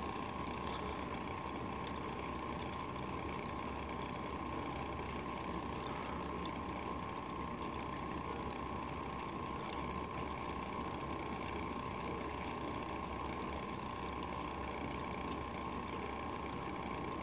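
Chameleon Cantina drinking fountain running, its water flowing in a steady, continuous trickle.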